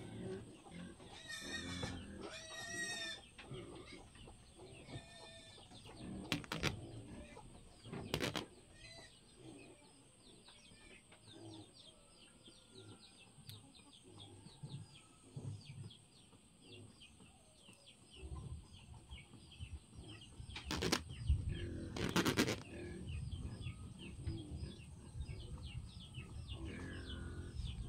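Birds chirping in a long run of short, high, falling chirps, with a few sharp knocks scattered through.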